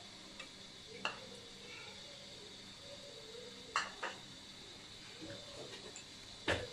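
A stainless-steel mixing bowl clinking sharply four times, about a second in, twice close together near the middle, and again near the end, as ingredients are added by hand. A steady faint hiss runs underneath.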